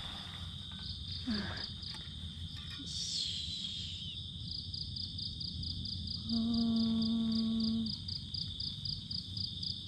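Forest insects chirring: a constant high drone with a rapid pulsing trill of several pulses a second over it. About six seconds in, a steady low hum is held on one pitch for under two seconds.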